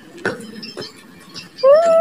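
Two light plastic clicks as a toy truck is handled on sand. About a second and a half in, a loud held pitched tone starts, glides up a little and then holds steady.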